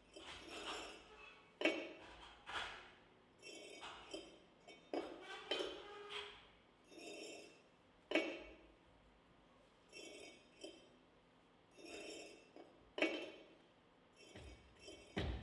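Sparse, glassy clinking and chiming in an uneven pattern, punctuated by a few sharp knocks, heard as part of a dance performance's soundtrack.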